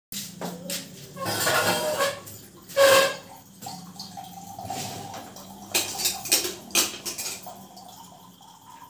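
Stainless-steel bowls, plates and a lid clinking and clattering as they are handled on a table, with the loudest clanks about two and three seconds in.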